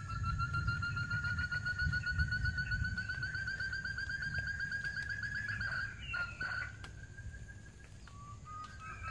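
Forest quail call: a long, rapid trill on one pitch that rises slightly, breaks off about six seconds in with a short chattering note, and starts again near the end. A low rumble runs underneath.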